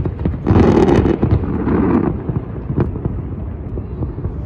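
Aerial fireworks going off: a run of sharp bangs, with a dense burst of crackle from about half a second to two seconds in. After that the reports grow sparser and softer as the barrage thins out.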